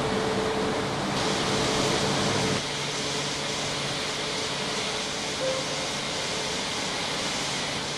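Steady hum and hiss of Max Shinkansen bullet trains standing at a station platform. A low hum with a few steady tones stops about two and a half seconds in, leaving a steady hiss.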